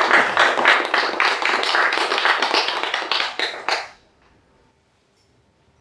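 Audience applauding; the clapping stops abruptly about four seconds in, leaving quiet room tone.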